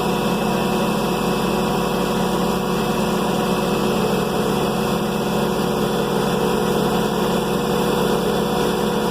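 An engine running steadily at a constant speed, its pitch unchanging.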